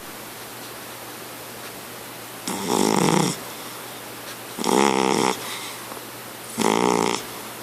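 Pet cat snoring: three snores, each under a second long, about two seconds apart.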